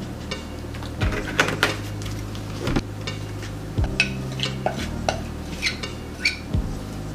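A utensil clinking and scraping against a bowl, several clinks at a time, while flour and a little milk are mixed into a stiff dough. Background music with a steady low bass runs underneath.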